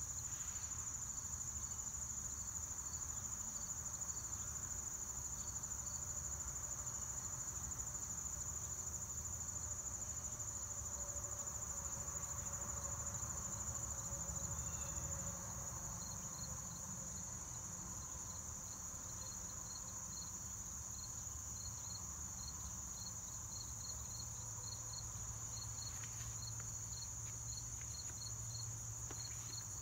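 Insects calling steadily in one continuous high-pitched drone, which drops slightly in level about halfway through. Beside it, another insect chirps in short, regular pulses a couple of times a second.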